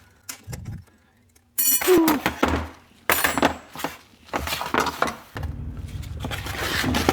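Steel transmission parts clinking and knocking as they are handled during disassembly, one hit ringing out sharply about a second and a half in. A low steady hum comes in after about five seconds.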